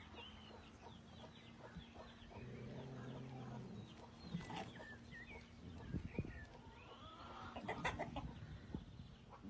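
Rooster clucking quietly, with a low drawn-out call about two and a half seconds in and faint high chirps scattered throughout.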